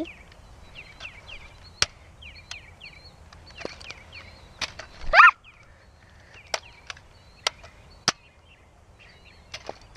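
Sharp plastic clicks, about a dozen scattered through, from a Nerf blaster being handled and primed. Small birds chirp in the background, and a short high squeal sounds about halfway through.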